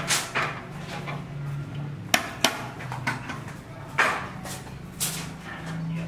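Steel rebar being bent into stirrups with a hand rebar-bending tool: sharp metal clanks and clinks, two close together about two seconds in and single ones near the start, about four seconds and about five seconds in.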